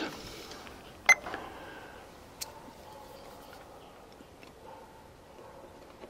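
A multimeter's rotary dial clicks over to the capacitance setting: one sharp click with a brief beep about a second in. A fainter click follows a second or so later as the test leads are put on the run capacitor's terminals, over low background noise.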